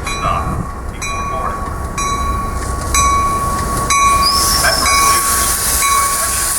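A train running, with a steady high whine over a low rumble; a hissing noise rises about four seconds in.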